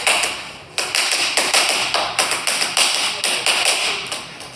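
Boxing gloves hitting padded focus mitts in quick flurries of punches, many sharp smacks a second. There is a short lull about half a second in.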